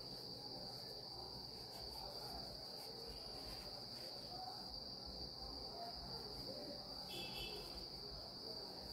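Faint rustling of hands stuffing small crochet pieces with silicone fiberfill, under a steady high-pitched whine at one unchanging pitch.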